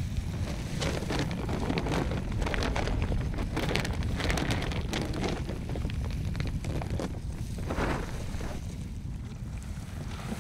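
Wind rumbling on the microphone, with scattered rustles and crackles of movement through grass as someone climbs over a log.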